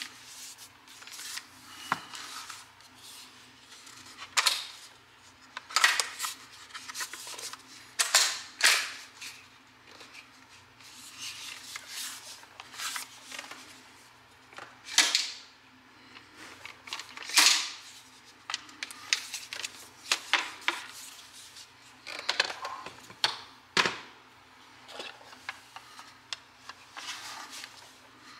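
Handling noise from a Crosman AK-47 BB rifle being turned over in the hands: irregular clicks, light knocks and short rubbing or scraping sounds of hands and fittings against the gun's body.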